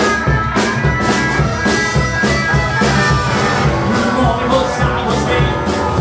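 Live rockabilly band playing at a boogie tempo: electric hollow-body guitar, upright double bass and a drum kit, with the drums hitting about twice a second.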